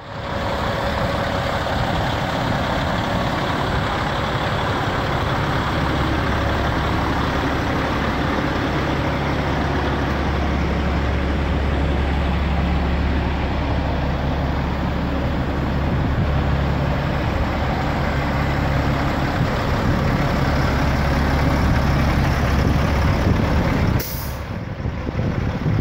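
Kenworth T800 semi tractor's diesel engine idling steadily. A short sharp hiss comes about 24 seconds in.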